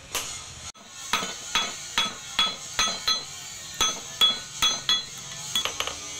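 Hand hammer striking red-hot steel on a post anvil while a blade is forged from an old file: about ten ringing metallic blows, roughly two or three a second, starting about a second in after a brief break, with lighter taps near the end.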